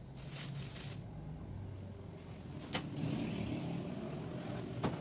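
Plastic bags rustling briefly, then a low steady rumble with two sharp clicks about two seconds apart.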